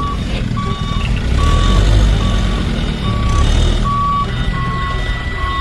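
Vehicle reversing alarm beeping steadily, about one beep every 0.8 seconds, over a low engine rumble. A second, higher steady tone joins about four seconds in.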